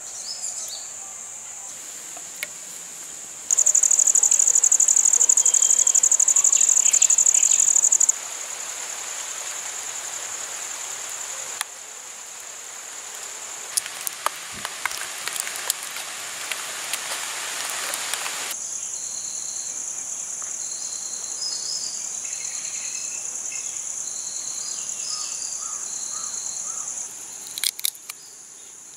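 Insects trilling: a steady, high-pitched chirring that is much louder for a few seconds near the start, with short high chirps of birds over it later on and a few small clicks near the end.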